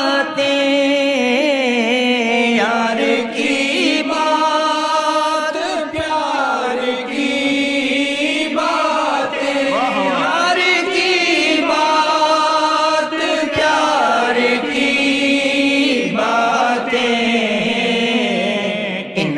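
A man singing an Urdu devotional qasida solo, in long, ornamented melodic lines with held notes.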